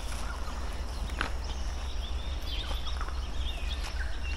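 Rainforest birds calling: many short high chirps and quick falling whistles, over a steady low rumble and an even hiss of background noise.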